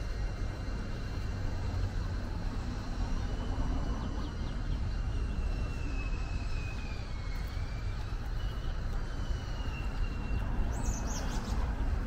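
Steady low rumble of city traffic, with a few short bird chirps near the end.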